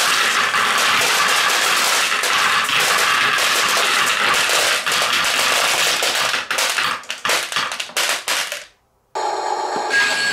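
Dense clatter of many glass marbles rolling down wooden ramps and dropping onto a heap of marbles in a plastic toy dump truck bed. The clatter thins to scattered clicks about seven seconds in and stops. After a short gap near the end, a battery-powered toy dump truck's small electric motor whirs.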